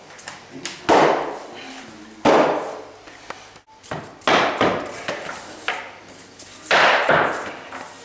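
Rubber mallet striking the edge of a bamboo click-lock floorboard: several dull knocks spaced a second or more apart, tapping the board's joint closed.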